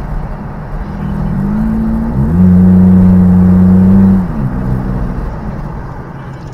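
Engine revving up and holding a loud, steady drone for about two seconds, then dropping away, over steady road and tyre noise at highway speed.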